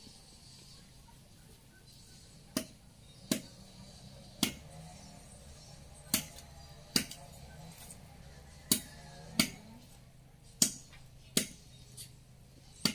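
Sharp chopping strikes, about eleven of them at uneven intervals, many coming in pairs a little under a second apart, as yard debris is chopped by hand.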